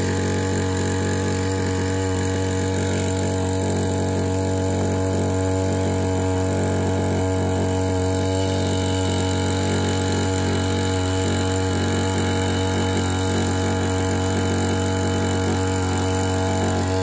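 Small engine-driven suction pump running steadily at a constant speed, pumping slurry from a biogas plant's outlet through a hose.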